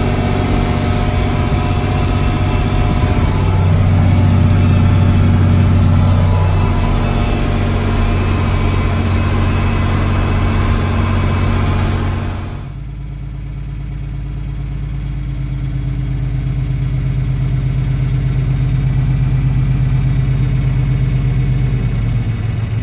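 John Deere tractor's diesel engine running while driving, heard from inside the cab. About thirteen seconds in the sound changes abruptly to a lower, duller steady engine drone with less hiss, which slowly grows louder.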